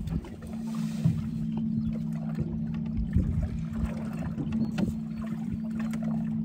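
Steady low hum of a boat's motor running, over wind and water rumble with scattered small knocks. A few faint short high chirps come in the second half.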